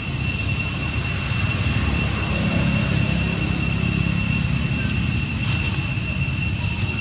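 Steady outdoor background: a continuous high-pitched whine at two pitches, one an octave above the other, over a low rumble, with no monkey calls.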